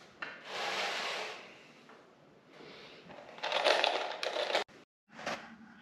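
Wooden 2x4 boards being handled and shifted against each other: two bursts of scraping and shuffling, the second louder with a few sharp clicks.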